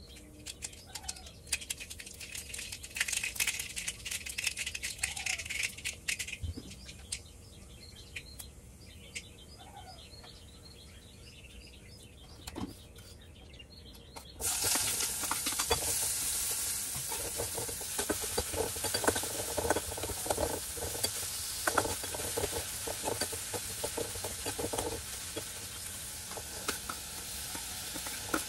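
Food sizzling in hot oil in a metal kadai, with a spoon clinking and scraping against the pan and plate. The sizzle starts suddenly about halfway through and then carries on steadily; before it there are only faint clicks and a few short chirps.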